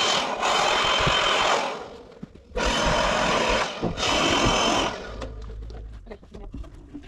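A handheld electric power tool runs in three bursts at the end of 3-inch PVC conduit, with a steady motor whine: one long run, then two short ones about a second each. After it stops, a low hum and a few light clicks remain.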